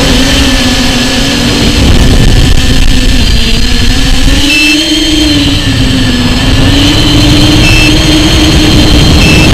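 Electric motor and propeller whine of an FPV aircraft in low, fast flight, its pitch wavering up and down, over a heavy rush of wind on the on-board camera's microphone.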